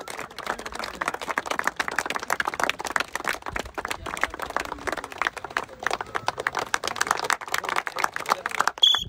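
A crowd clapping hands, a dense, uneven patter of claps throughout. A brief high tone sounds near the end.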